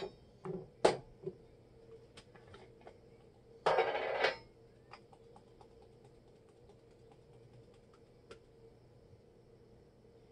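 Spice jars and metal measuring spoons handled while measuring ground spices: a few sharp clicks and knocks in the first second and a half, a short rush of rustling noise about four seconds in, then scattered light ticks.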